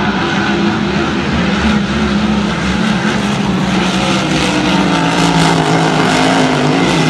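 Grand Prix racing hydroplanes running at full speed, a steady engine drone with rushing spray hiss. It grows louder over the last few seconds as the lead boat passes close.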